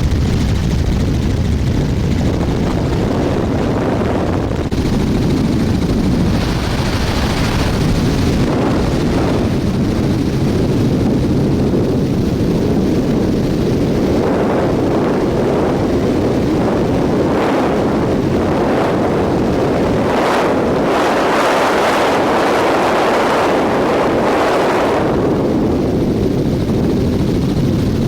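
Helicopter in flight, heard from aboard: a loud, steady rotor and engine rumble, with a rushing noise that swells from about halfway through and eases near the end.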